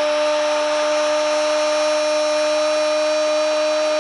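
Football commentator's long, drawn-out "goool" shout, held on one steady high note over the noise of a stadium crowd, calling a goal.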